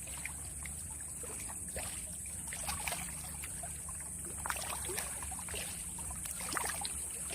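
Lake water lapping and trickling at the shore: a scatter of small irregular splashes and plinks over a steady low rumble.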